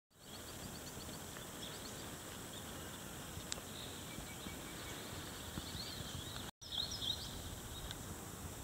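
Outdoor ambience: small birds chirping and singing over a steady hiss. The sound drops out for an instant about six and a half seconds in.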